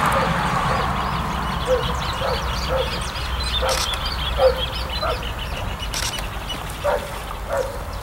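An animal gives short calls about eight times at irregular intervals, over the low steady rumble of a distant freight train's diesel locomotives, with small birds chirping faintly.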